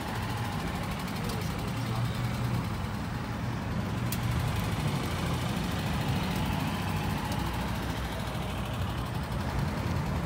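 A vehicle engine running steadily at idle, a low, even sound.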